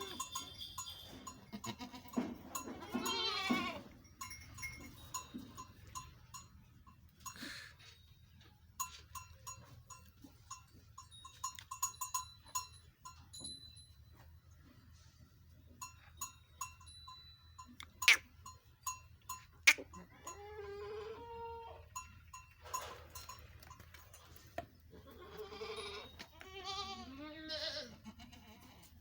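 Sojat goats bleating in quavering calls a few seconds in, again after about twenty seconds, and several near the end. Sharp clicks and knocks come in between, the loudest two about eighteen and twenty seconds in.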